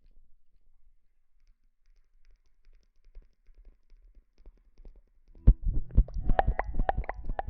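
Close-miked ASMR trigger sounds: almost quiet at first, then about five and a half seconds in, a quick, dense run of crackling, squishing clicks.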